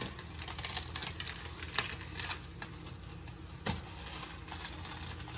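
Ground meat sizzling and crackling in a pot as it browns, with a sharper knock a little past the middle.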